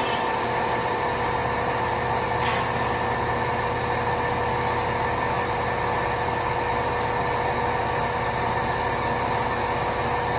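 ALTCK36A slant-bed CNC lathe running, its spindle turning a long metal shaft workpiece under the tool: a steady machine hum with several constant whining tones. A low drone underneath stops near the end.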